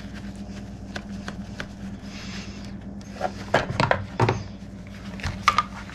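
Scattered clicks, knocks and plastic rattles as the clutch cover of a Husqvarna 395XP chainsaw is worked loose and pulled off the saw by gloved hands, over a steady low hum in the shop.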